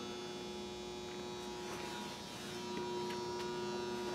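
Steady electrical hum of several constant tones, with a few faint ticks.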